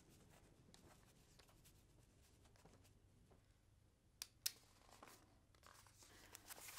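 Near silence in a quiet room, with faint handling of paper sheets and two sharp clicks close together about four seconds in.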